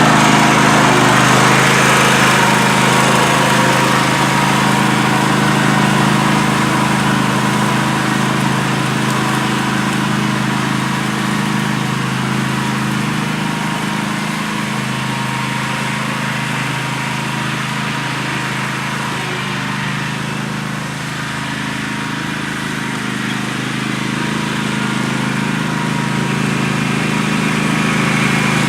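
Riding lawn mower's engine (a Craftsman GT6000 garden tractor) running steadily, easing slightly in the middle and coming back up near the end.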